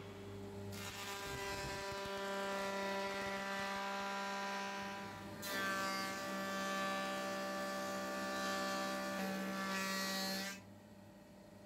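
A small electric power tool running at a steady pitch with a hissing whine, in two runs of about five seconds each with a brief stop between them.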